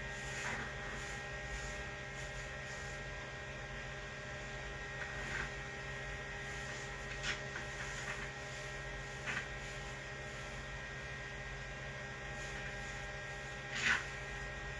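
Steady electrical mains hum made of several fixed low tones, with five brief, soft noises scattered through it.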